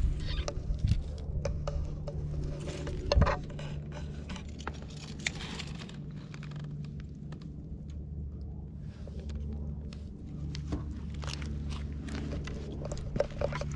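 Light taps, scrapes and rustles close to the microphone as a hand pets a cat and the cat steps over fishing nets, ropes and gear, with a sharper knock about three seconds in. A steady low hum runs underneath.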